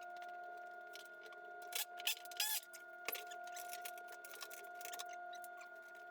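Scattered light clicks, scrapes and rattles of metal parts and tools being handled, with a small cluster about two seconds in, over a steady hum.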